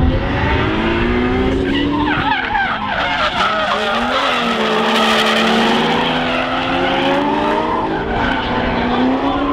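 Two drift cars pulling away from the start and sliding in tandem, their engines revving up and down as the tyres skid and squeal through the turn.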